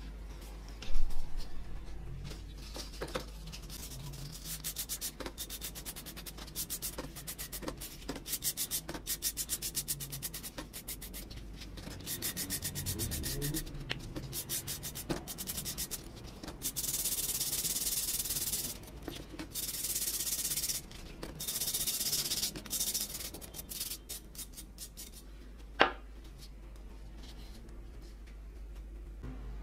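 A small brush scrubbing loosened rust off the steel iron of an antique hand plane, wet from a rust-removal bath: runs of quick back-and-forth strokes, with steadier stretches of faster scrubbing in the middle. A loud knock about a second in and a single sharp click near the end.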